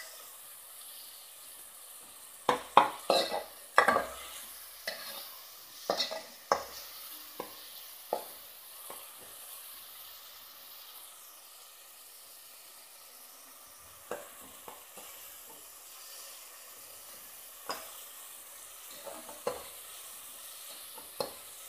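Sliced tomatoes and onions sizzling in oil in a steel pot, with a steady hiss. A metal spoon scrapes and knocks against the pot as they are stirred, the strokes coming thick in the first seven seconds or so and only now and then after that.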